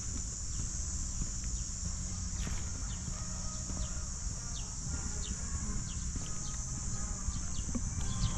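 Outdoor ambience: short, high bird chirps repeating every half second or so over a steady high hiss and a low rumble.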